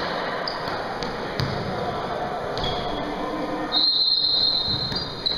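Basketball game ambience in a gym: the ball bouncing, sneakers squeaking on the court, and voices echoing in the hall.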